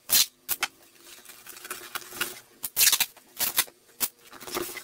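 Duct tape being pulled off the roll in a series of short rasping rips, about eight strips, the loudest near the start and about three seconds in, as a cardboard box is taped shut.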